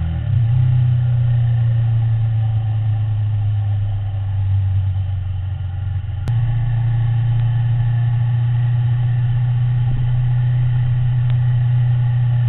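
Ducati motorcycle's V-twin engine running steadily at road speed. About six seconds in there is a click, and the engine note steps up and gets louder.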